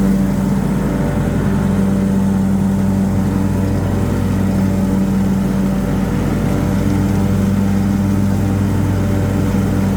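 Lawn mower engine running at a steady speed while mulching fallen leaves into pasture grass, an even drone with no change in pitch.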